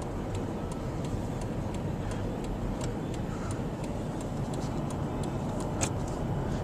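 Car driving, with steady road and engine noise heard inside the cabin, and a light, even ticking about three times a second.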